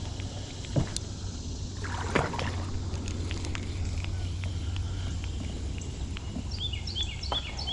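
Kayak on a river: two sharp knocks, about one and two seconds in, over a steady background of water and wind. Near the end a songbird sings a rapid series of repeated downward-slurred high notes.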